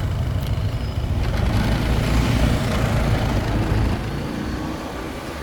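Motorcycle engine running while riding, with road and wind noise; the low engine sound eases off about four seconds in.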